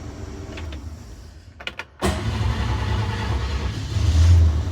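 1954 Chevrolet's engine running, then dying away. A few clicks from the ignition switch, then the engine starts abruptly and runs, louder about four seconds in. The freshly tightened ignition switch is being tested.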